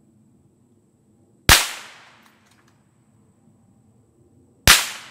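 Two suppressed .308 Winchester rifle shots, 147-grain loads, fired through a PWS BDE 7.62 3D-printed titanium suppressor in its long configuration. The shots come about three seconds apart, each a sharp report with a short fading tail.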